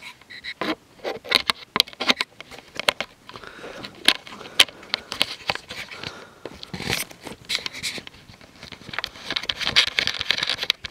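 Handling noise close to a camera-mounted microphone: irregular clicks and small knocks with fabric rustling and scraping between them, growing into a denser rustle near the end.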